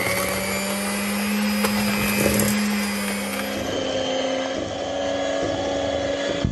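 Electric hand mixer running steadily, its beaters whirring through butter and brown sugar in a stainless steel bowl as the two are creamed together. Its hum shifts to a higher pitch a little past halfway.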